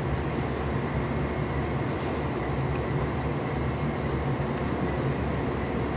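Steady low mechanical rumble and hum, with a few faint clicks on top.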